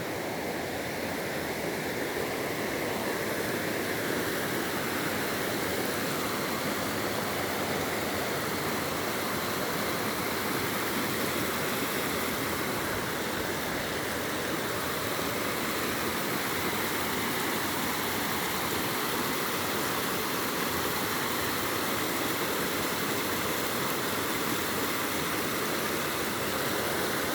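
Running water rushing steadily, like a stream or small waterfall, an even unbroken rush with no other events.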